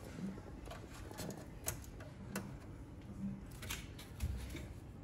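A few faint, sharp clicks and light handling noise from small network hardware, an SFP module and a fiber patch cable, being handled and fitted into a converter's slot.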